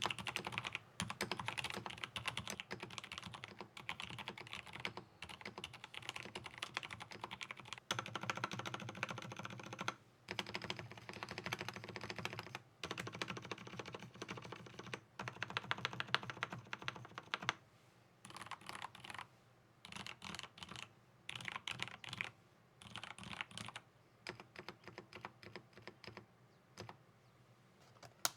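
Typing on a TEX Shura mechanical keyboard with Kailh Midnight Pro silent tactile switches and ABS double-shot keycaps: a fast, dense run of keystrokes, then, a little past halfway, shorter bursts of typing with brief pauses between them.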